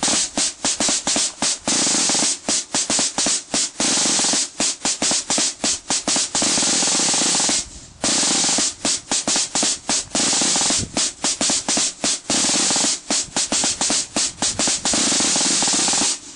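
Marching-band snare drums play a fast cadence of sharp strokes and long rolls. There is a brief break about halfway through, and the drums stop right at the end.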